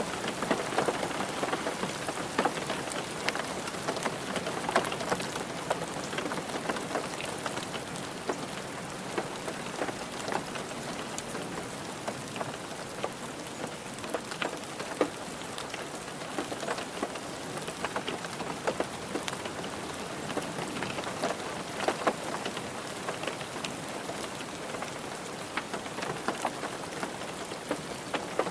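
Steady rain on a car roof: a constant hiss of rainfall with many separate drops striking sharply throughout.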